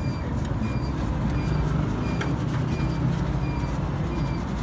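Honda 70 motorcycle's small single-cylinder four-stroke engine running steadily, with a few faint clicks over it.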